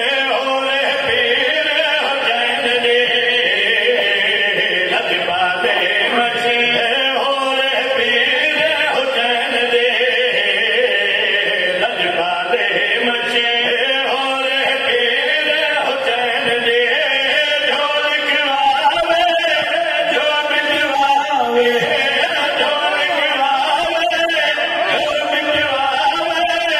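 A group of men's voices chanting a Punjabi qasida in praise of Imam Hussain into microphones, sustained and continuous with no break.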